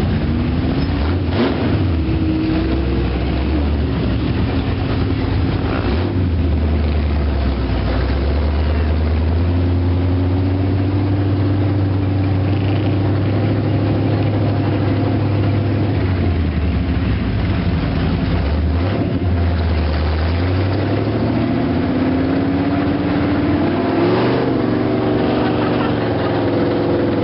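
ATV engine running under way on a dirt track, its pitch rising and falling several times with the throttle.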